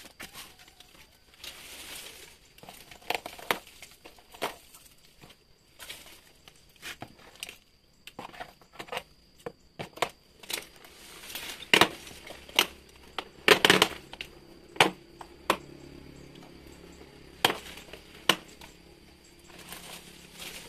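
Hand pruning shears snipping through roots under a pot, with crackling of roots, soil and the brittle cracked plastic pot: a string of irregular sharp snaps, loudest and most frequent in the middle stretch.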